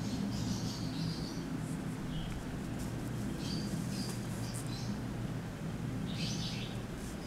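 Small birds chirping in three short bouts over a steady low hum.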